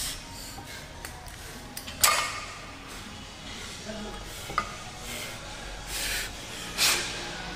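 Metal gym weights clanking: a few scattered sharp metallic knocks, the loudest about two seconds in.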